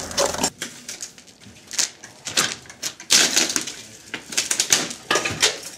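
Hand tool prying and scraping at the old wooden frame and wire mesh of a cellar window: a run of irregular scrapes, knocks and clicks.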